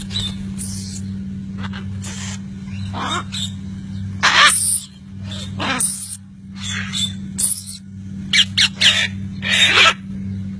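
Parrots squawking: a series of short, harsh screeches at irregular intervals, over a steady low hum.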